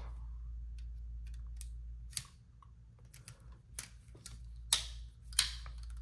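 Irregular small metal clicks and taps of a Leatherman ARC multi-tool being handled while a bit is fitted to its bit driver, the sharpest clicks about two seconds in and twice near the end.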